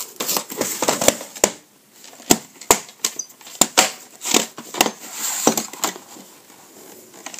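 VHS cassettes and their cardboard sleeves being handled on a wooden floor: a string of sharp clicks and knocks, with short stretches of sliding and scraping as a tape slides out of its sleeve.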